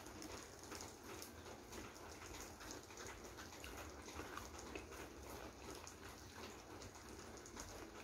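Faint, steady patter of rain falling outside, a dense run of small irregular ticks, with soft chewing of crisp breaded fried food.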